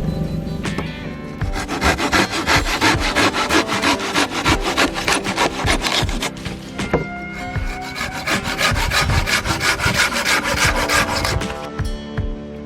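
Hand saw cutting through wood in quick, rhythmic back-and-forth strokes, in two bouts with a short pause between them.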